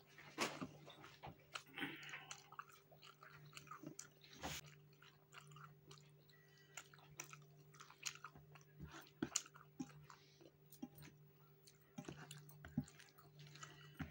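Faint, close-up chewing and wet mouth clicks of a person eating rice and eggplant-and-fish curry by hand, in irregular bursts.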